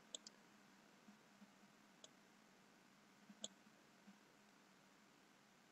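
Near silence broken by a few faint computer-mouse button clicks: two close together at the start, one about two seconds in, and a slightly louder one about three and a half seconds in.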